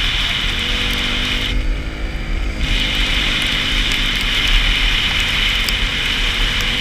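Can-Am Renegade 570 ATV engine running on the move, with wind rumbling on the microphone. About one and a half seconds in, the throttle eases off for about a second: the engine note falls, then climbs again.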